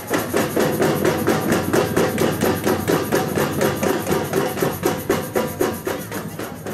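Batucada samba percussion ensemble drumming a fast, even rhythm of sharp strokes, tailing off near the end.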